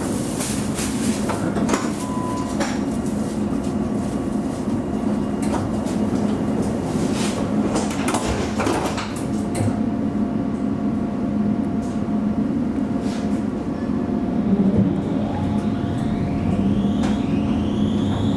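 Alstom Citadis tram standing at a stop with a steady hum, a few knocks and clicks in the first half. Near the end the traction motors start a rising whine as the tram pulls away.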